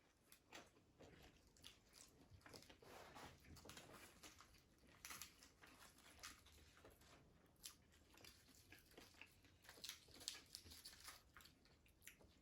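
A person chewing a crispy fried egg roll close to the microphone: faint, irregular crunching bites.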